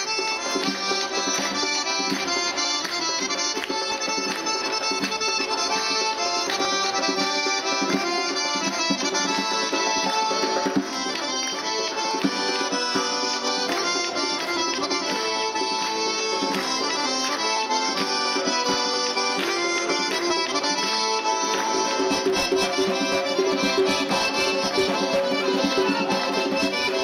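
Accordion playing a lively traditional Caucasian dance tune, with hand-clapping keeping the beat.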